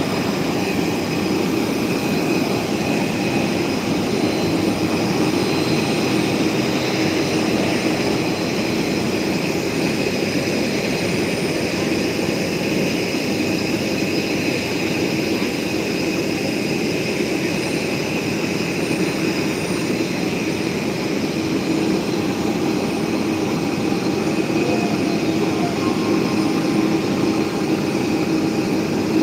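Steady whine and rumble of jet aircraft turbines, several thin high whistling tones over a low hum, running unchanged throughout.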